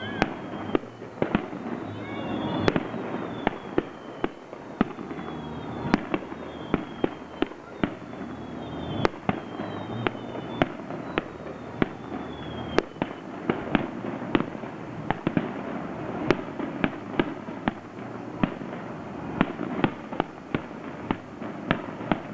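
Fireworks display: a rapid run of shell bursts, several a second, over a constant crackle, with short falling whistles through the first half.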